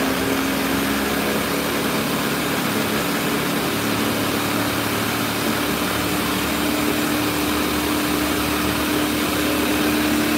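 Ninja countertop blender running on high, pureeing cauliflower: a steady, even motor whine whose pitch steps up slightly about a second in.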